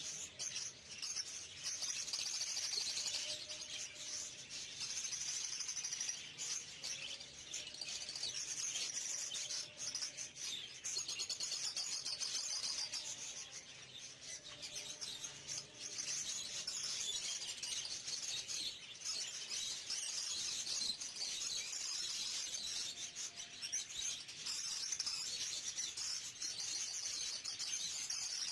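Many budgerigars chattering together in a dense, continuous twitter that swells and dips, thinning briefly about halfway through.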